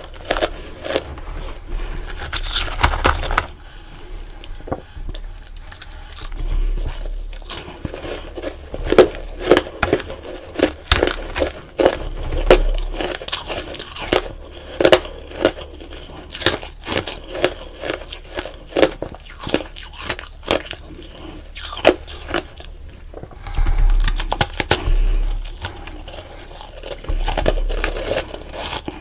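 Close-up crunching and chewing of powdery frost ice, bitten off in chunks: a dense run of sharp, crackly crunches with louder clusters of bites every few seconds.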